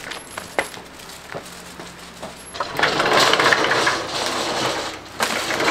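A few light footsteps, then a sliding glass-paned entrance door of an old Japanese house rattling as it is slid open, and about two seconds later rattling again as it is slid shut.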